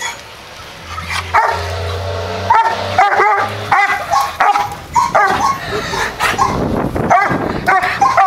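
Doberman Pinscher barking and yipping over and over, short calls about two a second.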